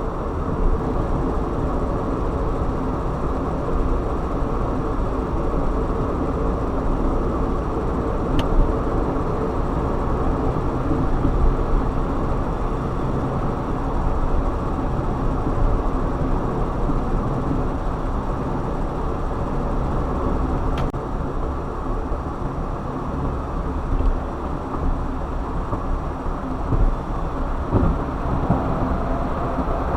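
Steady road noise of a car being driven: engine and tyre rumble that stays level throughout, with a couple of faint brief ticks.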